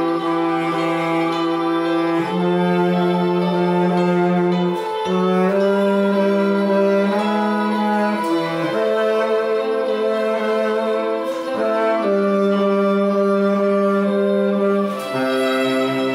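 Bass saxophone playing a slow hymn melody in long held notes that change every two seconds or so.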